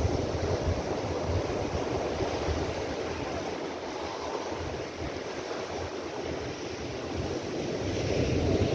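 Rough sea surf breaking and washing in over a boulder beach: a steady rushing that swells louder near the end as a wave surges up between the rocks.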